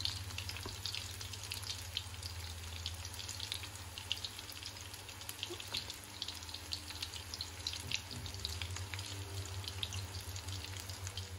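Breadcrumb-coated chicken and noodle kebabs deep-frying in hot oil in a karahi: a steady sizzle dotted with fine crackles and pops, over a steady low hum.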